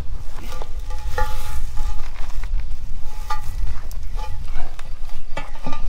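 Crackling, rustling handling noise and scuffing steps on grass and gravel, with wind rumbling on the microphone and a few short, high chirping tones.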